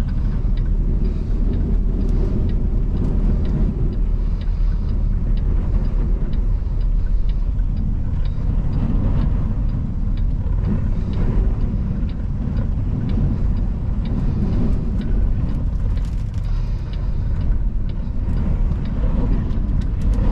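Steady low rumble inside a loaded semi truck's cab at highway speed, with strong wind buffeting the truck. Faint small ticks and rattles come through now and then.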